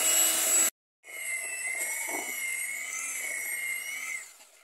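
Electric hand mixer running with a steady whine, its twin beaters whisking cake batter in a stainless steel bowl. The sound cuts out briefly just under a second in, then resumes and fades away near the end.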